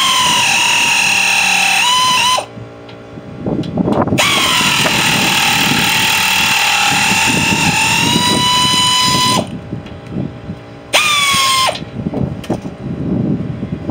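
Cordless drill/driver running in three bursts, a high whine that sags in pitch as it bites and then holds steady, while undoing the motor's mounting bolts. Light metal clatter in the pauses between runs.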